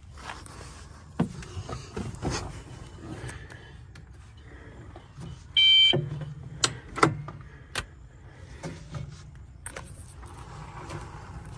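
Kandi six-passenger electric golf cart being readied to drive: a series of clicks and knocks, and one short, loud electronic beep about six seconds in.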